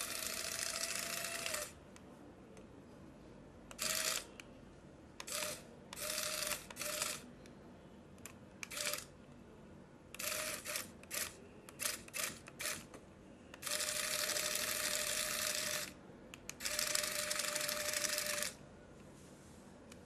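Small electric motor and plastic gear train of a remote-control Hercules beetle toy running in stop-start bursts as its legs crawl. There is a run at the start, then a string of short bursts, then two longer runs of about two seconds each near the end.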